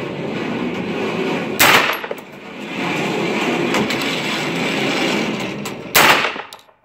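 Two shots from a 9mm AR pistol on an indoor range, about four seconds apart, each a sharp crack with a short ring-out. Fainter cracks and a steady rushing noise fill the gaps between them.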